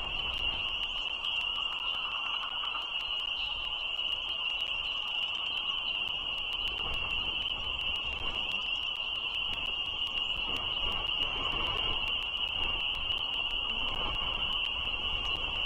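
A distant chorus of frogs making a continuous high-pitched trill that holds one steady pitch throughout, over a steady low rumble of background noise.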